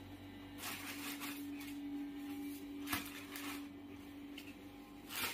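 Clear plastic wrapping on a foam mattress crinkling and rustling in several short bursts as it is handled, over a steady low hum.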